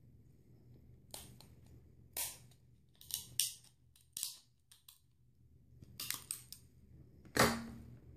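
Sharp scissors cutting through cooked crab shell: a series of crisp cracks and snips at uneven intervals, the loudest near the end.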